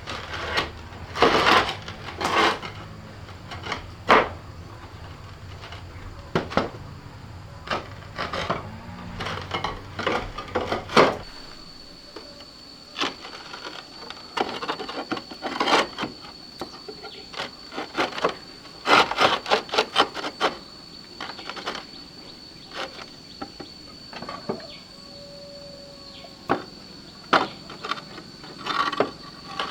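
Roof repair work: roof tiles being knocked, shifted and set back in place, giving scattered sharp clacks and scraping.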